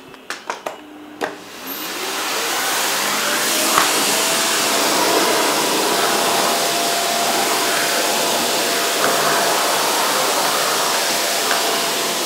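A few sharp clicks, then a canister vacuum cleaner's motor starts about one and a half seconds in. It rises in pitch and level over a second or so into a steady run, with a few light knocks.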